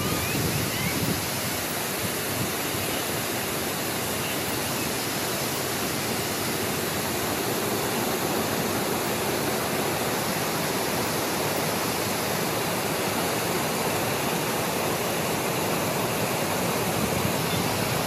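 Waterfall close by: a steady rush of falling water pouring into a pool.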